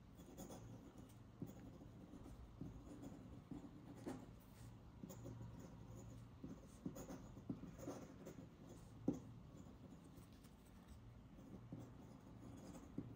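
Metal nib of a feather quill dip pen scratching across paper in faint, uneven strokes, with a few sharper ticks, the sharpest about nine seconds in.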